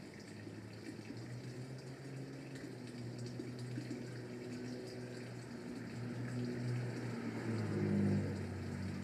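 Background hum with a water-like rushing noise behind it, slowly swelling and loudest about eight seconds in.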